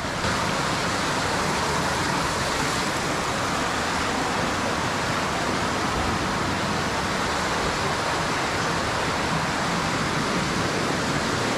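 Steady rushing of water from an underground stream in a cave.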